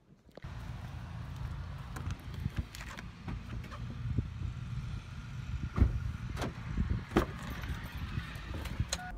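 Chevrolet SUV's door handle pulled and the door opened, several sharp clicks and knocks from the latch and door, the loudest about six seconds in, over a steady low rumble.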